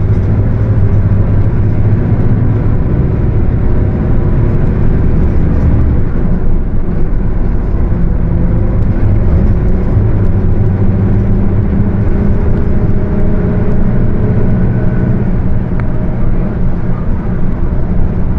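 Mercedes-Benz OF 1721 bus under way, its diesel engine running steadily with a whine from the rear axle over it: the differential is growling. The whine's pitch drifts slowly up and down with road speed.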